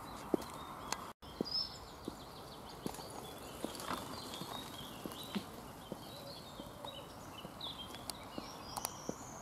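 High-heeled platform pumps clicking on an asphalt path at a steady walking pace, with a brief break about a second in. Birds chirp faintly in the background.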